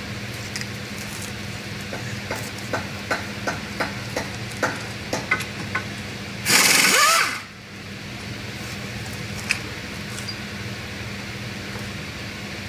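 A run of sharp metal clicks and taps from hand tools working at a car's front wheel hub and steering knuckle. About six and a half seconds in comes a loud hiss lasting under a second. A steady low hum runs underneath throughout.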